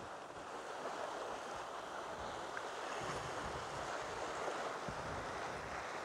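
Sea waves washing against a rocky shore, a steady rushing wash, with wind gusting on the microphone from about halfway in.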